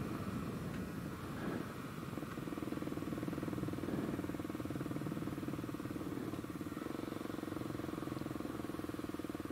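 Kawasaki KLX300's single-cylinder four-stroke engine, breathing through a Delkevic carbon slip-on exhaust, easing down over the first couple of seconds and then running steadily at low revs.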